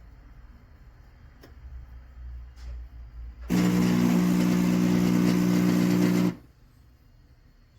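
Espresso machine's pump buzzing loudly for about three seconds, starting and stopping abruptly, after a low hum and a couple of faint clicks.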